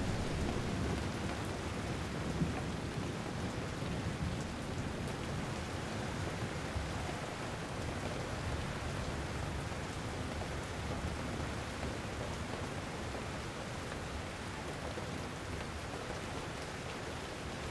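Rainstorm: steady rain falling, with a low rumble of thunder underneath.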